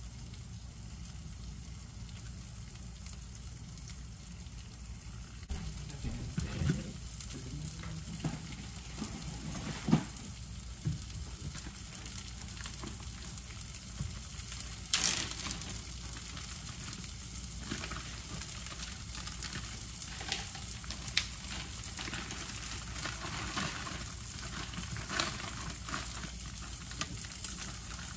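Sausage pieces sizzling steadily in a frying pan, cooking in their own fat without oil. A few sharp clicks and knocks sound over it, the loudest about ten and fifteen seconds in.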